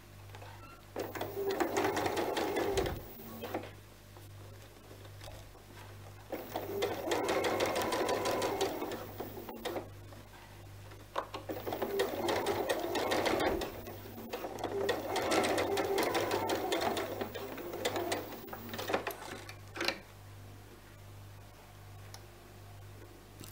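Domestic electric sewing machine stitching in four short runs of a few seconds each, stopping and starting between them as a seam is sewn.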